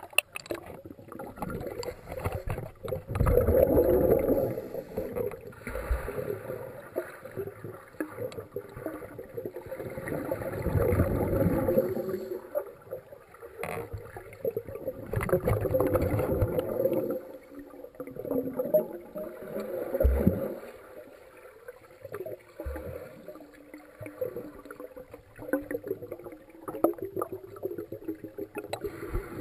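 Muffled underwater sound of a swimming pool picked up by a submerged camera: water churning and bubbling, swelling and fading every few seconds, with a couple of short low thumps near the end.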